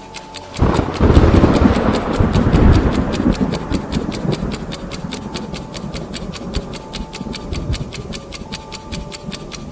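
A sudden loud rumble breaks in about half a second in and slowly dies away over several seconds, over a fast, even ticking of about five ticks a second and faint held tones.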